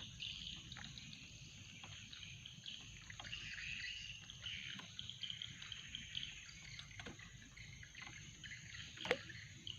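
Insects chirring steadily in the background, with scattered faint ticks and one sharp click about nine seconds in.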